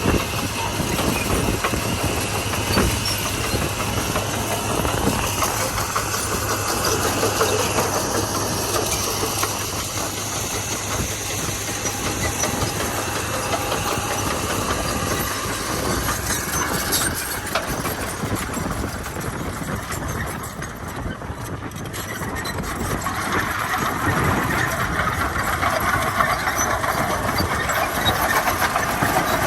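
Komatsu D41P crawler bulldozer at work: its diesel engine running steadily under a dense clatter of machinery. The sound eases for a moment about two-thirds of the way through, then grows louder again.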